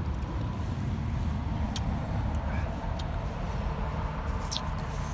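A steady low rumble with a few faint clicks scattered through it.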